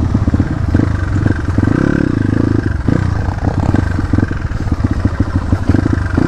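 Dirt bike engine running as it is ridden, with a fast, even firing beat.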